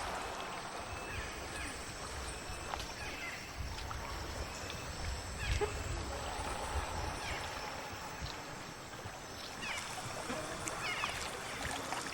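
Tropical rainforest ambience: a steady high insect hum with many short bird chirps and calls scattered throughout, over a low rumble.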